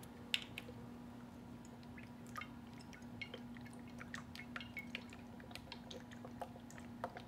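Olive oil pouring from a glass bottle into a plastic blender jar: faint, irregular little splashes and ticks, the sharpest about a third of a second in, over a steady low hum.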